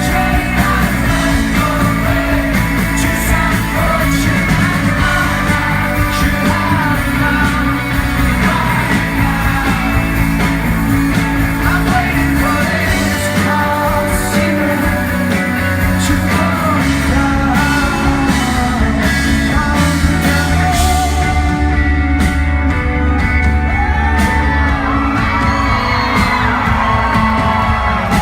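Live rock song with a lead singer over band accompaniment, echoing in a large hall, with yells from the crowd.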